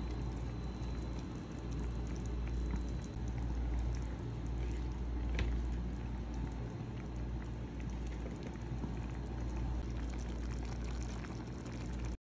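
Chicken humba simmering on a low flame in an open stainless steel pot, the braising liquid bubbling with many small pops over a steady low rumble; one sharper pop about five seconds in.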